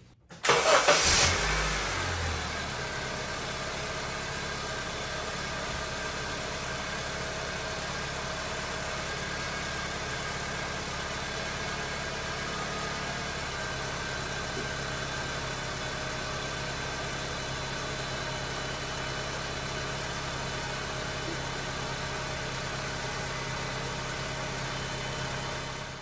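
2009 Honda Civic's four-cylinder engine starting, loudest as it catches just after the start, running fast for a second or two, then settling into a steady idle. The power steering pump is quiet, with no whine, now that its hose O-rings are replaced and the fluid refilled.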